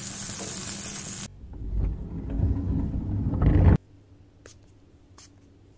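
Semolina chilla batter sizzling on a hot iron tawa for about a second. It then breaks off into a low rumble that grows loudest and cuts off abruptly near the four-second mark, followed by a few faint clicks.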